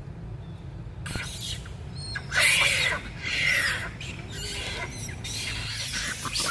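Young macaques squealing and screaming in loud shrill bursts as they wrestle, starting about two seconds in, over a steady low rumble.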